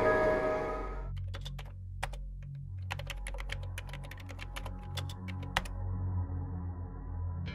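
Typing on a laptop keyboard: irregular key clicks, some in quick runs, over a low steady drone. Title music fades out within the first second.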